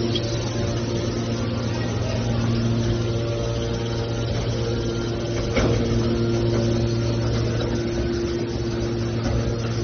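Hydraulic metal shear baler's power unit running with a steady hum. A single sharp knock comes a little past halfway.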